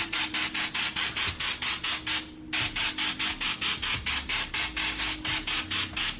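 Aerosol baking spray with flour in it hissing into a bundt pan in rapid, even spurts, about six a second, with a short break about two and a half seconds in.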